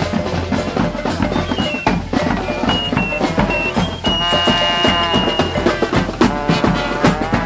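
A street brass band playing: horns over a steady marching-style drum beat with bass drum. About halfway through, a high note is held for about a second and a half.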